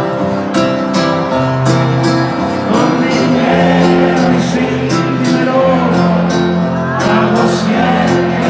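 Live ranchera played over a stadium sound system: guitar strumming with sustained notes and voices singing, heard from within the crowd.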